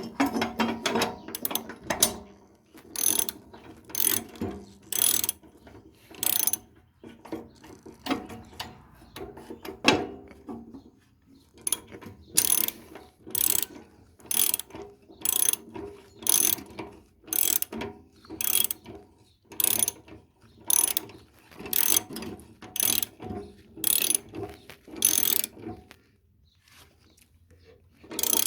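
Socket ratchet clicking in repeated short strokes, about one a second, while the lawn mower's blade bolt is tightened by hand. The clicking stops a couple of seconds before the end.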